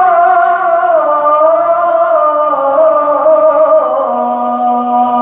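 Male Quran reciter chanting in melodic tilawah style, drawing out one long ornamented vowel that winds downward in pitch and settles on a steady low note about four seconds in.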